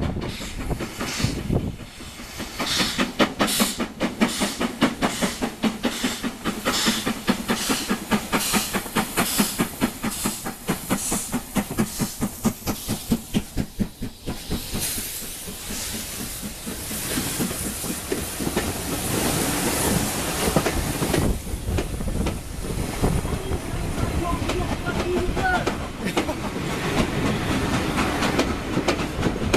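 Steam locomotive approaching and passing close by on the next track, with a rhythmic beating that grows in the first half and a hiss of steam as the engine goes by about halfway through. Its coaches then roll past with wheel clatter.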